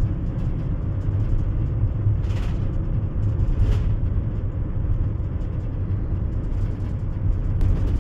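Road noise heard inside a moving vehicle's cabin: a steady low rumble of tyres and engine, with two faint swells of hiss a few seconds in.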